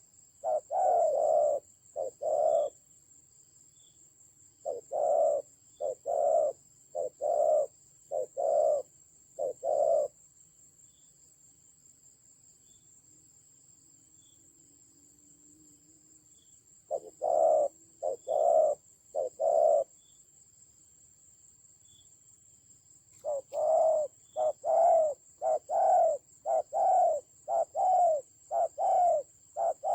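Spotted doves cooing in bouts of short, evenly repeated coos, with pauses of several seconds between the bouts. A faint steady high-pitched tone runs underneath.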